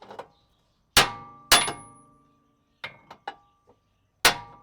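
Hammer blows on the steel front suspension of a Subaru Forester to knock a ball joint loose: three hard ringing strikes, two close together about a second in and one near the end, with a few lighter taps between.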